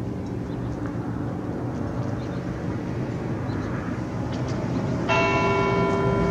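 A bell tolling: the ringing of the previous stroke fades slowly, then a new stroke sounds about five seconds in and rings on.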